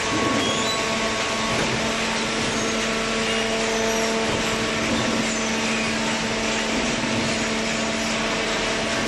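Vertical hydraulic baler running: a steady machine whir with a constant hum from its electric motor and hydraulic pump.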